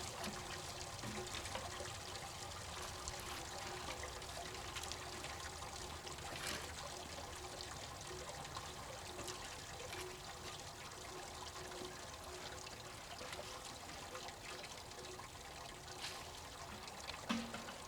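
Water running and trickling steadily, with a few faint knocks.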